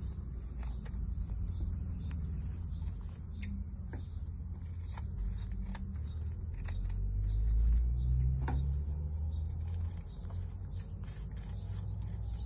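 Scissors snipping through a three-ply disposable face mask: a run of irregular, sharp little clicks as the blades close, over a steady low rumble.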